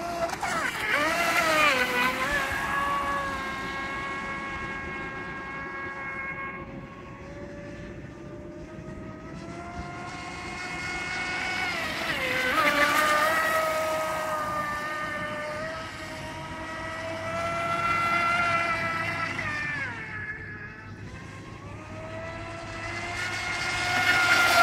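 Joysway Bullet RC speedboat's water-cooled 2815 1900KV brushless outrunner motor, on a 4S LiPo, whining at high speed. The pitch slides up and down and it swells loudest about four times as the boat passes close, fading between passes.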